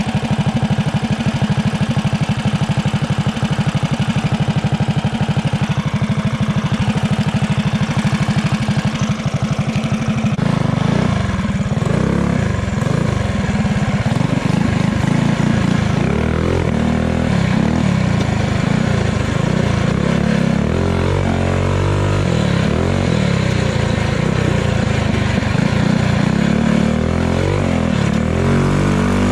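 Small off-road bike's single-cylinder four-stroke engine running at a steady speed. About a third of the way in it starts rising and falling in pitch as it is throttled up and down while ridden.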